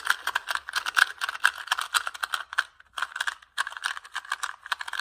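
Plastic 2x2 speed cube being turned rapidly by hand, its layers clicking and clacking in a fast, continuous run with a brief pause a little past halfway.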